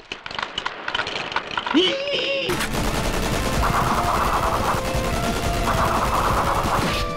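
Anime sound effect of machine-gun fire: a sudden long, continuous burst, the shots running together into a dense rattle, starting about two and a half seconds in. Before it come rapid light clicks and a short vocal sound.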